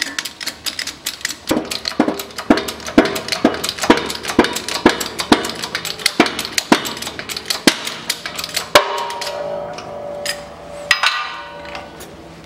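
Wheel bearing being pressed into a steering knuckle in a shop press: a run of sharp metallic clicks and cracks with ringing, about two to three a second, as the outer race is forced into its bore. After about nine seconds the clicks stop and a ringing metallic tone lasts a couple of seconds.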